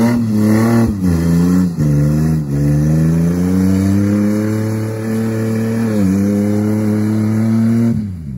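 Toyota Tacoma pickup's engine revving hard with its rear wheels spinning on snow. A few quick rises and falls in pitch are followed by several seconds of held high revs, then the revs drop away sharply near the end.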